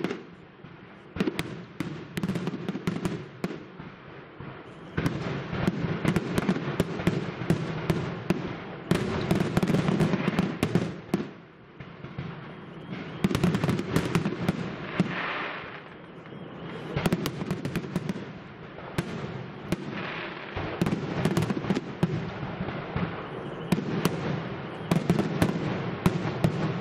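Professional aerial fireworks display: shells bursting in quick succession, many sharp bangs over a continuous crackle. The barrage swells and eases several times.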